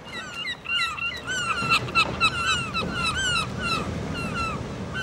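Animal sound effect: many short, overlapping chirping calls, with a few sharper, louder sounds around two seconds in.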